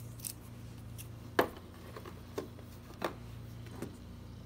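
Cardboard juice boxes and plastic applesauce cups being picked up and set down on a tabletop, giving a few sharp taps and knocks; the loudest comes about a second and a half in. A steady low hum runs underneath.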